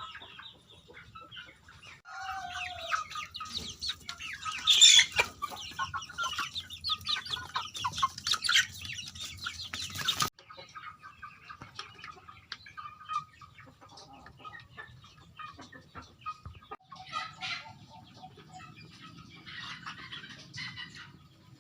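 Domestic chickens clucking, with short clicks and scuffling among the calls. The busy stretch cuts off sharply about halfway through, and quieter, scattered clucks follow.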